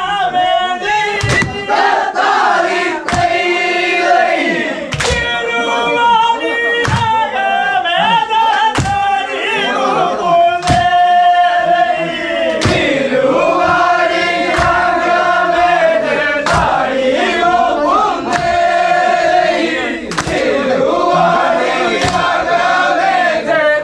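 A group of men singing a traditional Kerala boat song (vanchippattu) together, with sharp strikes about once a second keeping the beat.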